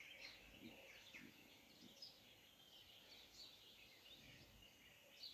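Near silence: faint background hiss with faint, scattered high chirps.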